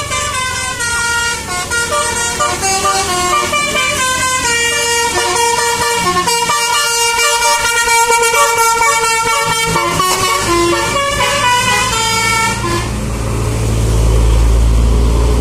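Alfarizi Trans bus's telolet horn, a multi-tone musical air horn, playing a melody of short stepped notes. Near the end the horn stops and a deep rumble swells.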